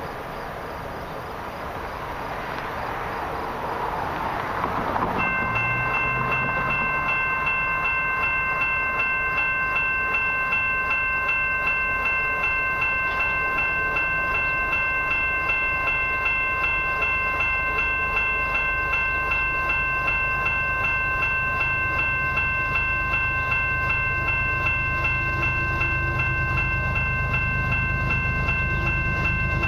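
A railway level-crossing warning bell starts ringing about five seconds in and keeps ringing steadily, signalling that a train is approaching. In the second half, the low rumble of approaching diesel locomotives grows underneath it.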